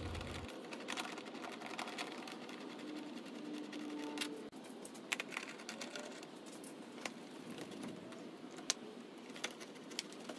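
Small, scattered clicks and taps of a nut driver turning out a plastic air box's fastener and of hands working the intake snorkel and hose clamp, with a short steady tone about three seconds in that cuts off suddenly.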